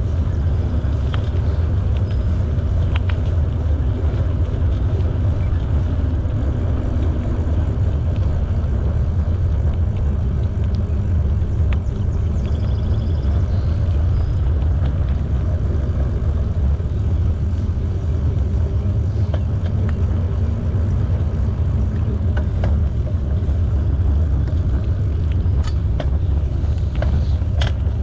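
Steady low wind rush on the microphone of a camera riding on a moving bicycle, with a few faint clicks near the end.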